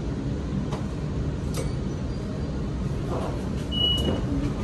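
Light rail tram running slowly into a stop, a steady low rumble from the car. Near the end comes one short high beep, the door signal as the tram comes to rest.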